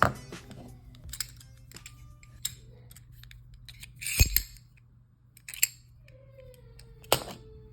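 Folding pocket knives being flicked open and snapped shut: a series of sharp metallic clicks, the loudest about four seconds in and another near the end, over a faint steady hum.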